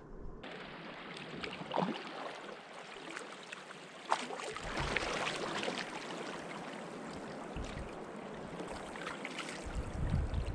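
River current rushing and lapping around a canoe hull above a set of rapids, with a couple of sharp knocks about two and four seconds in.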